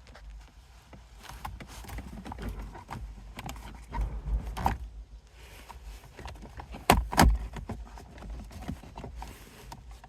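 Scattered plastic clicks and knocks as the trim cover around a car's gear shifter is pried loose, with two louder snaps close together about seven seconds in.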